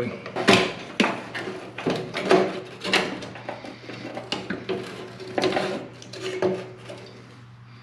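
Irregular metallic clanks, clicks and scrapes of hand work on a Ford Ranger's in-tank fuel pump sending unit as it is worked loose from the fuel tank, thinning out and growing quieter near the end. A faint steady hum runs underneath.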